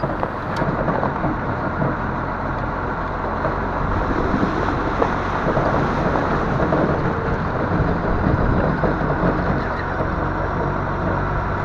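1991 BMY M925A2 military 6x6 truck under way, its Cummins six-cylinder turbo diesel running steadily with a dense drivetrain rumble. The sound grows slightly louder over the stretch.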